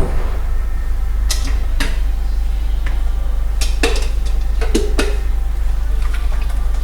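Dishes being washed by hand: scattered clinks and knocks of plates and utensils against each other, about seven in a few seconds, over a steady low hum.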